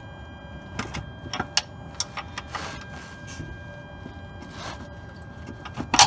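A wrench tightening the nut on the automatic shifter's locking mechanism from under the car: a string of short metallic clicks and taps at uneven intervals.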